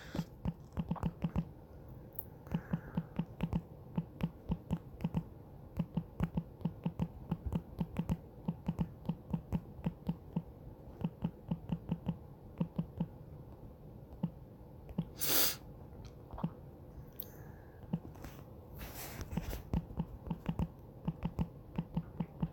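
Fingers tapping on a smartphone's touchscreen keyboard while typing a message: a run of quick, irregular soft taps, several a second, with a short pause about fourteen seconds in. A brief hiss breaks in just after the pause.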